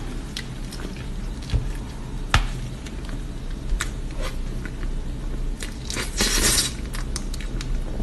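Close-miked eating sounds of soft durian mille-crepe cake with whipped cream: scattered clicks of a fork against the plate and soft wet mouth sounds, with a louder, longer wet stretch about six seconds in. A low steady hum runs underneath.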